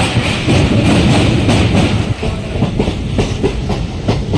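Passenger train running on its rails, heard from inside a moving coach: a steady low rumble with irregular clicks of the wheels over the track.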